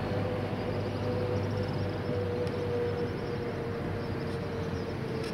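Steady road traffic noise, with a vehicle engine hum that sinks slowly in pitch.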